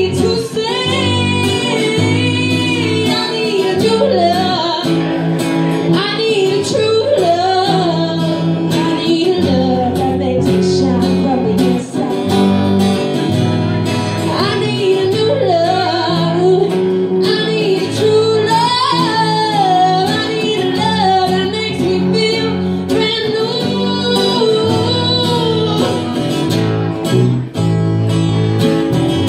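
Live band music: a woman singing a melody while strumming an acoustic guitar, with an electric bass playing steady low notes underneath.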